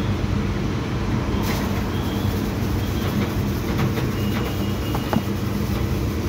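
Steady low rumble with a faint hum, and a few light clicks over it.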